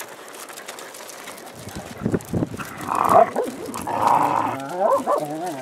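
Kai Ken puppies playing: a couple of loud yaps about three and four seconds in, then a wavering, bending whine near the end.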